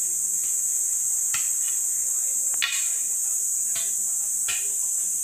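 Steady high-pitched shrilling of an insect chorus in the trees, unbroken throughout, with a few short faint taps under it.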